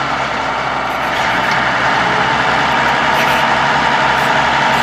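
Diesel tractor engine running hard under load, pulling a lorry on a tow chain, with a steady high whine that rises slightly in the second half.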